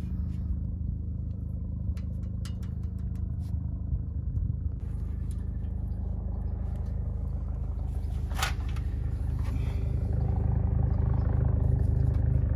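An engine running steadily nearby, a low pulsing hum that grows a little louder near the end. Light metallic clicks of a feeler gauge and wrench on the valve gear come over it, several in the first few seconds and one sharp click past the middle.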